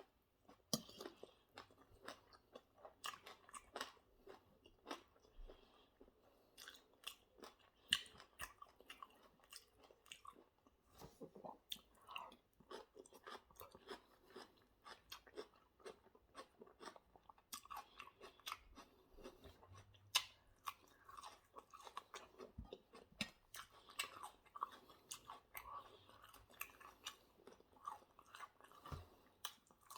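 A person chewing food right at the microphone, with a steady run of irregular mouth clicks, smacks and crunches, several a second and a few louder ones, typical of close-miked mukbang eating.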